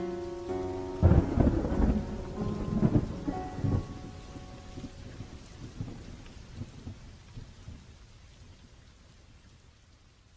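A low rumble of thunder with rain, loudest a second or so in, then dying away slowly to near silence. It comes in just after the last notes of a plucked-string background music track, as a recorded sound effect rather than anything from the procedure.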